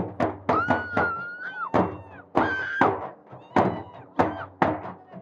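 Uneven drum beats, about two a second, accompanying dancing, with high held calls over them that bend down at their ends.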